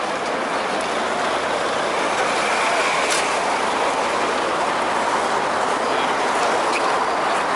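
Steady noise of heavy traffic on a busy city avenue, with a brief click about three seconds in.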